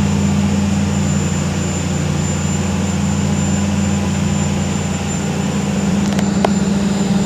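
Steady low machine hum with a thin high whine over it, unchanging throughout; a couple of faint clicks about six seconds in.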